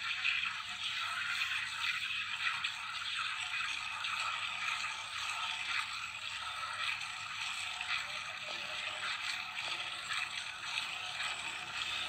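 Cow being milked by hand: streams of milk squirting into a steel pail already part full of milk, a steady hiss.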